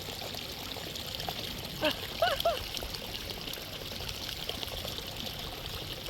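Steady rushing and trickling of flowing hot-spring and river water. About two seconds in, a few short pitched vocal sounds rise briefly over it.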